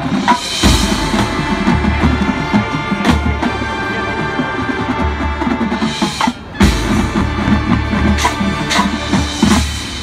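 High school marching band playing its field show: sustained horn chords over a drumline with bass and snare drums and front-ensemble percussion. The band drops back briefly about six seconds in, then comes back in with a strong hit.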